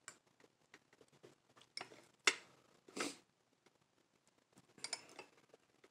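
Plastic fork clicking and scraping against glass bowls while picking up food: a scatter of faint light clicks, with a few louder ones in the middle and a cluster near the end.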